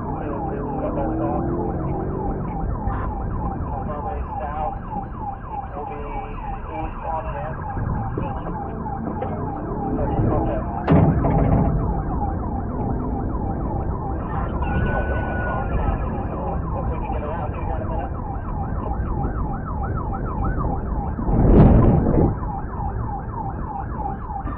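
Police car siren in a fast, repeating yelp over steady vehicle engine and road noise, with two short, louder noise bursts about halfway through and near the end.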